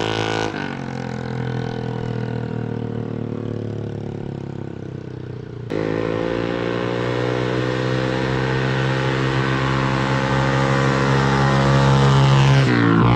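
Motorcycle engine with a stock motor running through an aftermarket Samlong exhaust, held at steady revs. The sound changes abruptly about half a second in and again near six seconds. The revs climb slowly, then drop away near the end.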